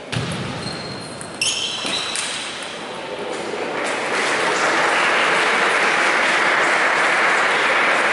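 A short table tennis rally in a large hall: a few sharp hits of the ball in the first two seconds. From about four seconds in, spectators applaud steadily.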